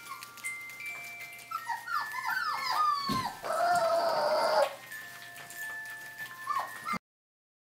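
Four-and-a-half-week-old smooth collie puppies whimpering: a string of short, falling squeaks, then a louder wavering whine for about a second, over a tinkling music-box melody. The sound cuts off abruptly near the end.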